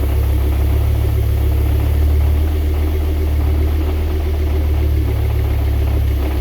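Rebuilt DAZA engine idling steadily with a deep even rumble, carrying the same abnormal noise that the owner believes comes from a faulty dual mass flywheel.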